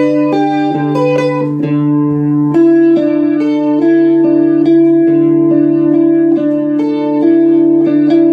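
Fender Stratocaster electric guitar played through a Yamaha RA-200 rotary speaker amplifier. It plays a slow melodic line of sustained notes that ring into one another, changing about once a second over a held low note.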